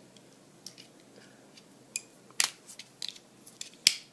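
Scattered small clicks and crinkles of hands working a small diecast toy car free of the rubber band wound around it, with two sharper clicks, one about two and a half seconds in and a louder one near the end.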